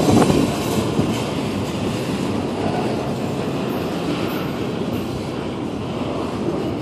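Double-stack intermodal well cars rolling past close by: the steady noise of steel wheels running on the rails, a little louder right at the start.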